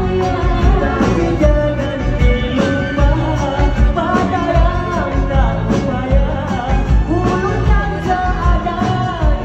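Live band playing an upbeat Hari Raya song, a steady drum beat and electric guitar under singers singing through microphones.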